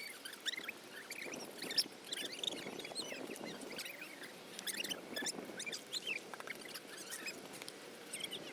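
A small stream trickling and gurgling, with many quick bubbling blips over a steady rush of running water.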